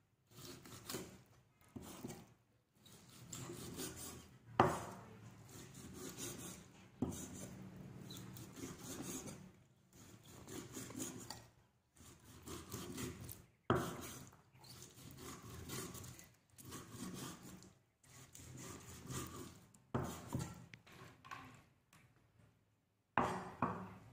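Cleaver slicing raw beef on a round wooden chopping board: repeated drawing strokes of the blade through the meat, scraping on the wood, with a few sharper knocks where the cleaver hits the board.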